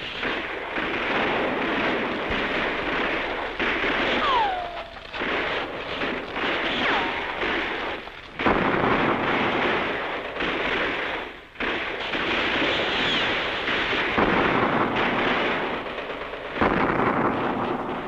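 Battle sound effects: dense, continuing gunfire and explosions, with sudden loud blasts about eight and a half and sixteen and a half seconds in. A short falling whistle sounds about four seconds in.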